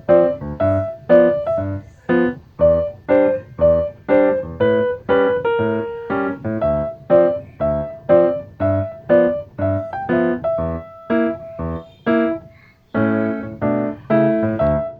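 Background music: a bouncy keyboard melody of short, evenly spaced notes, about three a second, with no singing.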